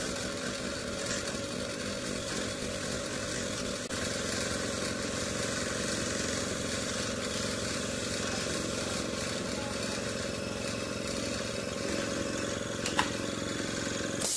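Small air compressor feeding an airbrush, its motor running with a steady hum, with the hiss of the airbrush spraying paint over it. A single sharp click comes near the end.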